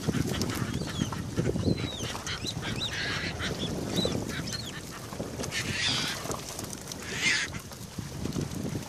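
A gillnet being hauled hand over hand over the gunwale of a wooden fishing canoe: water splashing and sloshing, and the net and fish slapping against the hull in short noisy bursts. A series of short, high squeaky calls comes early on, its source unclear.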